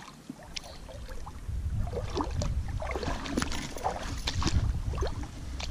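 Small hooked fish splashing and thrashing at the water's surface as it is reeled in on a spinning lure, in a string of short sharp splashes. A low rumble starts about a second and a half in.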